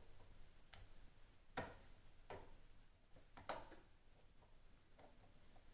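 Faint drips of water from a leaking tap, short plinks falling about once a second, a few louder than the rest.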